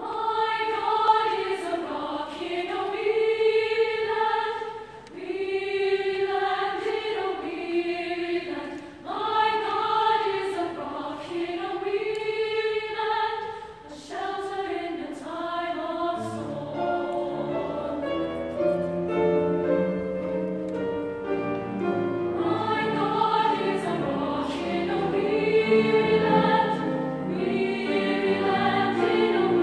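Women's choir singing: for about the first sixteen seconds a single melody line in phrases with short breaths between them, then the parts spread into several-part harmony with lower voices joining.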